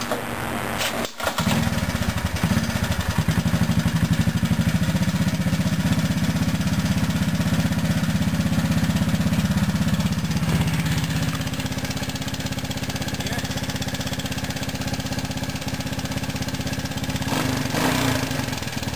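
A 180cc ATC three-wheeler's single-cylinder engine starts about a second in, runs at a fast idle on choke, settles to a lower idle about halfway through, and blips briefly near the end. It has a persistent tick, which the owner cured by tightening the timing chain tension: the sign of a slack cam chain.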